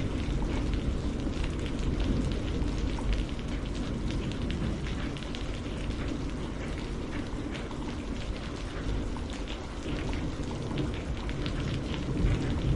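Steady rain falling, with a dense patter of small drop ticks over a deep, even low rumble.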